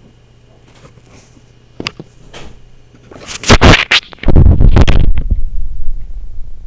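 A Logitech webcam's built-in microphone picks up a faint low electrical hum. About three seconds in come loud, distorted scratching bursts, then a heavy, distorted low rumble that eases slightly toward the end.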